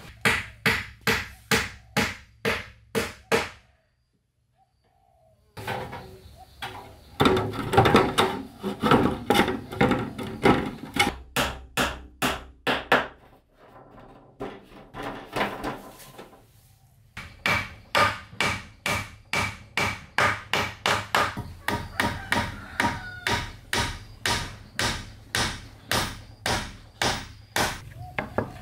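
Hammer blows on wood, fast and even at about two to three strikes a second, in several runs broken by a brief silence about four seconds in; the later strikes carry a faint ringing note.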